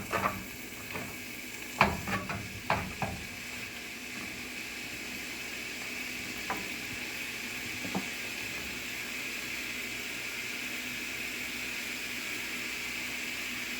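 Ground taco meat frying in a skillet, sizzling steadily. A few sharp knocks against the pan come in the first three seconds, and two lighter taps follow later.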